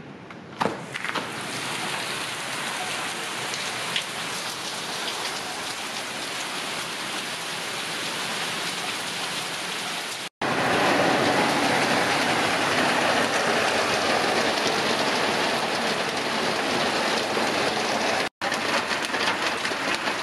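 Heavy hurricane rain pouring down in a steady, dense hiss, louder from about ten seconds in. A door latch clicks just after the start. The sound cuts out twice, very briefly.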